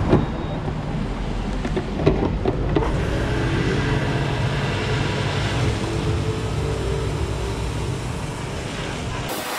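Steady motor hum with a few sharp knocks in the first three seconds. It cuts off abruptly near the end, giving way to a thinner hiss.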